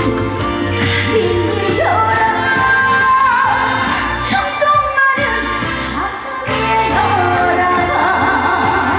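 Live trot song played by a band, with a woman singing held notes that slide between pitches.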